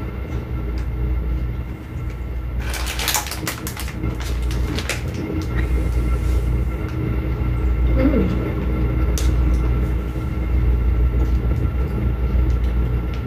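Steady low hum with a few steady tones over it. About three seconds in comes a burst of plastic snack-wrapper crinkling, with lighter rustles later on.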